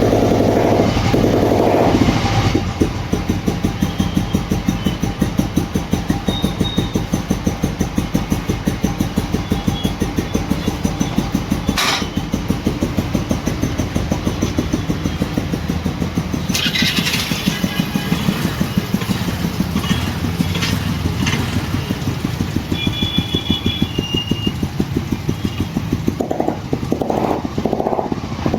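Old Royal Enfield Bullet's single-cylinder engine running with a steady, even thump, a little heavier in the first two seconds and near the end. A single sharp click comes about twelve seconds in.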